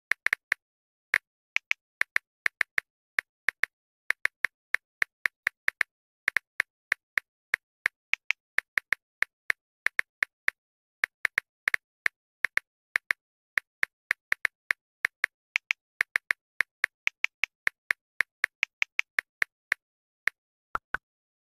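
Smartphone on-screen keyboard tap sounds: short, crisp clicks, one per key press, about three a second at an uneven typing pace, with silence between them.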